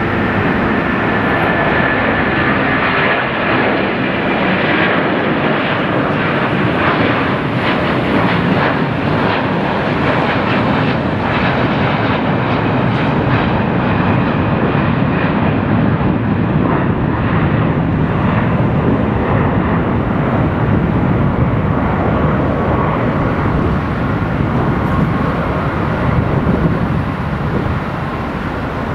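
Airbus A330-300's Rolls-Royce Trent 700 turbofans at climb power just after takeoff: a loud, steady jet roar. A faint high whine in the first seconds fades, and the sound grows duller as the aircraft climbs away.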